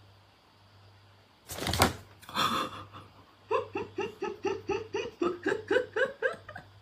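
A loud sudden noise, then a second shorter one, followed by a person laughing in a quick, even run of high 'ha' sounds, about four a second, for some three seconds.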